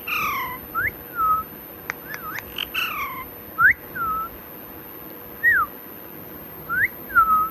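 Pet parrot giving a series of short whistled chirps that swoop up and down in pitch, about eight of them spaced irregularly, with two longer falling calls, one near the start and one about three seconds in.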